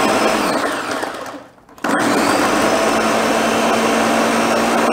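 Countertop blender running on a liquid mixture of milk, eggs and biscotti cookies: it runs, winds down with a falling pitch just over a second in and stops briefly, then starts again and runs steadily.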